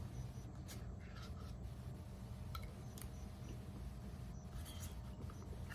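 Faint scrapes and a few light clicks of eating from a plastic pudding cup with a spoon, over a low steady hum.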